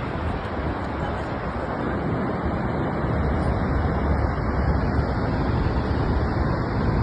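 Niagara Falls: the steady rush of a very large waterfall, an even noise heaviest in the low end.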